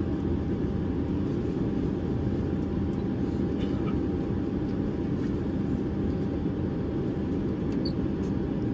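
Steady low rumble of cabin noise inside a Boeing 767-300ER airliner on the ground, with a faint steady whine over it.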